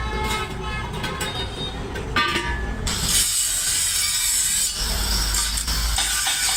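Steady scraping, grinding noise of metal work on a truck rim, over a low rumble, turning into a louder high hiss about three seconds in.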